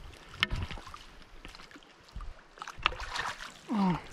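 Water splashing and stones knocking in a shallow, rocky river while a hooked trout is brought in, with irregular thumps and a clatter of splashes about three seconds in. A short voiced exclamation near the end.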